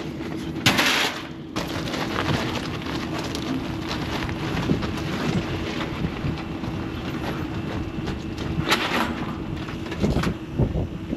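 Wind noise on the microphone, a dense rushing rumble, over a faint steady low hum. Two louder rushes of noise stand out, about a second in and again near the end.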